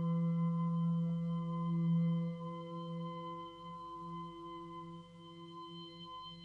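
Experimental film score: a sustained ringing tone with several overtones that wavers and slowly fades away.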